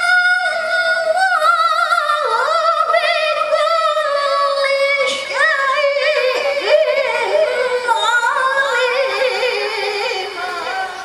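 A woman's solo voice in melodic Qur'an recitation (tilawah), amplified through a microphone: one long held phrase that starts high and steady, then winds down in pitch through quick wavering ornaments, fading near the end.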